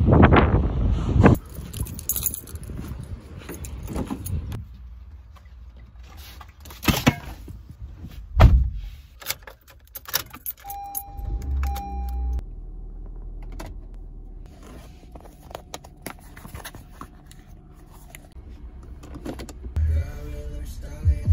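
Car keys jangling and handling noise, with a heavy thud about eight seconds in. Then, as the key goes into the ignition, a steady electronic tone sounds twice over a low rumble, and the car engine starts and runs with a low, steady hum.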